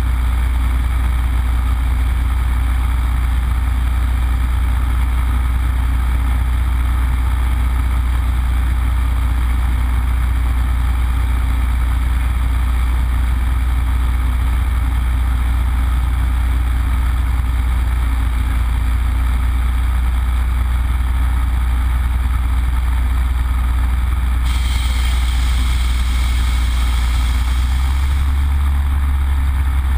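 Yak-52's nine-cylinder Vedeneyev M-14P radial engine running steadily in flight, heard inside the cockpit as a loud, deep, even hum. A higher hiss joins for a few seconds near the end.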